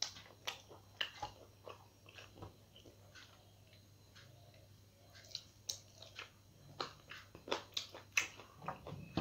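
Close-up eating by hand: fingers mixing rice and curry on a metal plate, with wet chewing and lip-smacking mouth sounds. These come as short, irregular clicks, louder and more frequent in the second half.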